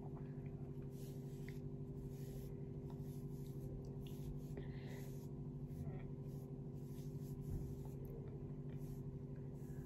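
Faint, soft rubbing strokes of a cotton pad wiped across the skin of the face to take off foundation, over a steady low hum.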